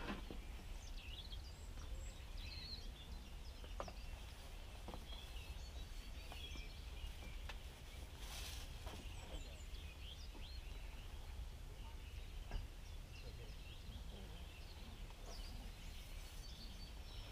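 Distant birdsong: many short chirps and trills from several birds, over a steady low rumble, with a few faint knocks.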